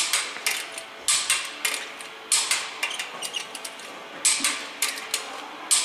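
Sharp metallic clicks from a hand torque wrench on a car's wheel nuts, about eight, several in quick pairs. Each click marks a nut being re-checked for tightness by hand after a tyre change.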